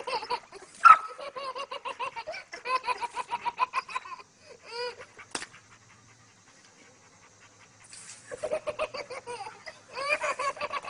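A baby giggling in quick runs of short laughs. The giggling stops for a few seconds in the middle, with a single click, and starts again near the end.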